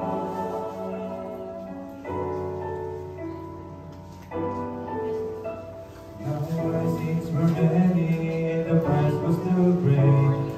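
Gospel song accompaniment in a short instrumental passage of held chords that change about every two seconds and fade a little. About six seconds in, a man begins singing solo over it and the music grows louder.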